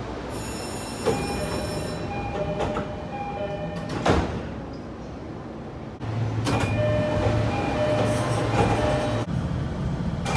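Subway train door chimes and platform screen door chimes sounding at once and out of step, a clashing mix of electronic chime tones, with sliding doors knocking shut about one and four seconds in. After a cut about six seconds in, another clash of chimes plays over a train's low hum.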